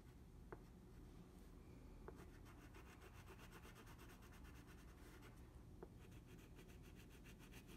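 Faint scratchy rubbing of a wax crayon scribbling back and forth on paper in quick strokes, pausing briefly near the middle, with a few soft ticks.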